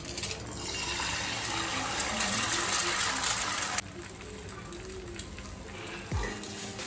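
Water gushing from a kitchen tap, shut off abruptly about four seconds in.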